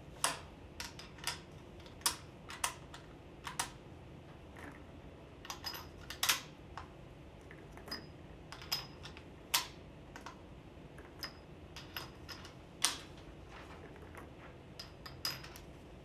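Irregular series of sharp clicks and light metallic clinks from a Spanish Mauser FR8 bolt-action rifle being handled and loaded with cartridges, about twenty in all, some with a brief high ring.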